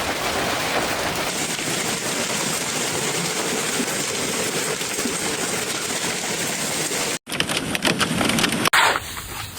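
Steady, even noise of a heavy downpour of storm precipitation. About seven seconds in it cuts off abruptly and is followed by a short run of sharp clattering knocks.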